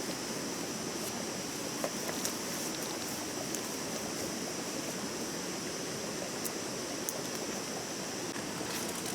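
Stream water running steadily with an even rushing hiss. A few faint ticks sound now and then.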